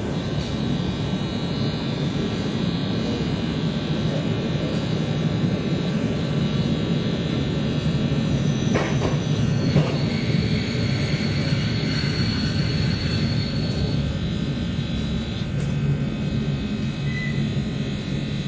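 Steady running rumble heard inside a carriage of an electric airport express train, with two faint knocks about halfway through.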